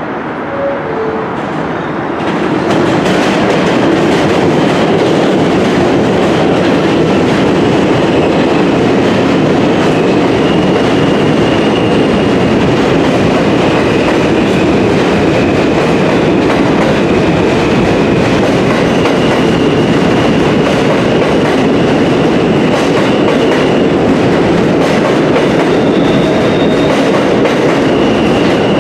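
R160 New York City subway train running along the elevated track beside the platform, a loud steady rumble of wheels on rail that builds over the first two or three seconds and then holds. A faint high tone comes and goes above it.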